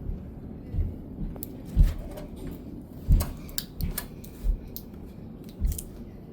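Door-lock hardware being handled and fitted: a series of sharp small clicks and taps, mixed with about half a dozen dull low thumps.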